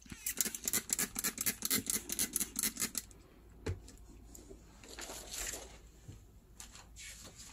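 Small fine-mist spray bottle pumped rapidly, about nine short sprays a second for some three seconds, misting liquid over a rubber tray; a single click follows, then a softer hiss of spray.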